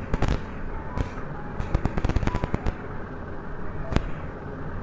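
A run of sharp, irregular cracks and clicks, bunched about two seconds in, with a single loud crack near the end, over a steady low rumble.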